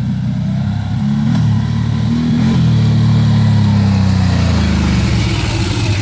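ATV (quad bike) engine running as the quad rides down a dirt trail toward the microphone, the pitch rising briefly about two seconds in, then getting louder as it comes close.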